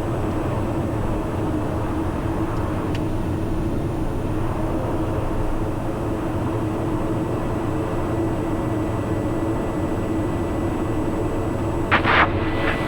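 Cockpit drone of a Socata TBM 910's Pratt & Whitney PT6A turboprop running steadily while the aircraft rolls off the runway after landing. A brief crackling burst comes near the end.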